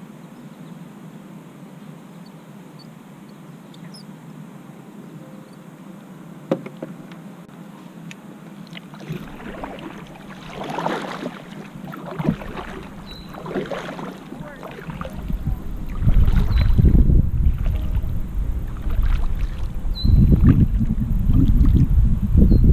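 Kayak paddle strokes dipping and splashing in the water, a few brief splashes at a time, followed over the last several seconds by a loud low rumble.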